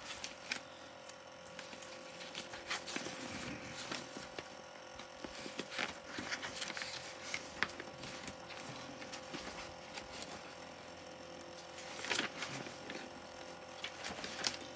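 Soft rustles and light taps of craft paper being handled and sorted on a desk, a few brief clicks scattered through, over the steady hum of an electric fan.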